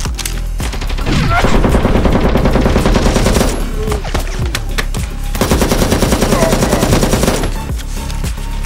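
Rapid automatic gunfire in two long bursts of about two seconds each, with a lull of scattered shots between them.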